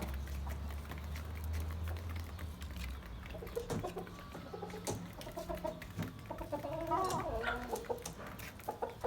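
Domestic hens clucking, a string of short calls that starts a few seconds in and gets busier toward the end. A low hum sits under the first three seconds.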